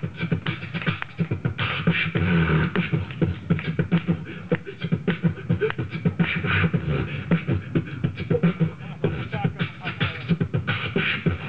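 Beatboxing into a handheld microphone: a fast, rhythmic stream of drum-like mouth sounds.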